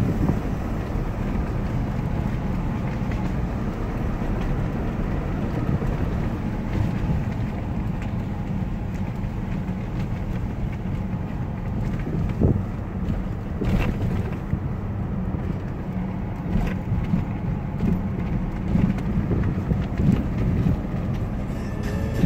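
Road and engine noise inside a moving Chevrolet pickup's cab: a steady low rumble, with a few short knocks and rattles in the second half.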